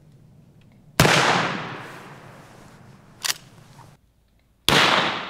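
Two sharp rifle shots from a Rossi R92 lever-action rifle with a muzzle brake, firing .38 Special rounds, each followed by a long, fading echo, the first about a second in and the second near the end. A short click comes between them.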